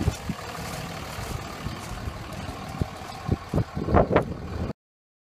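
Engine running steadily, with irregular knocks and clicks throughout and a few louder sharp sounds about four seconds in.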